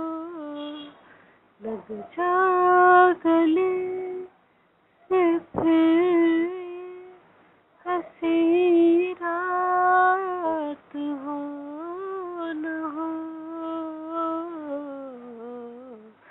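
A woman singing solo and unaccompanied in a slow melody of long, held notes that bend gently, phrase by phrase with short breaks for breath between.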